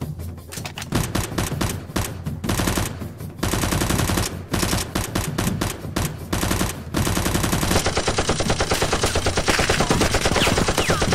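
Automatic-gunfire sound effect: rapid bursts of machine-gun fire, several short bursts at first, then longer ones, ending in one unbroken burst over the last few seconds.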